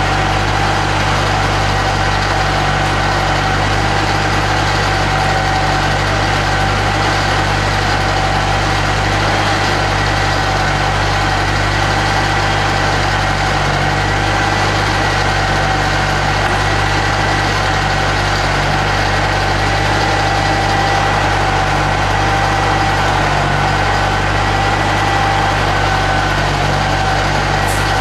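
An engine running steadily at constant speed: an even drone with a steady whine over it.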